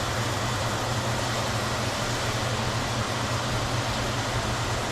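A steady low mechanical hum with an even hiss over it, like a running fan, unchanging throughout.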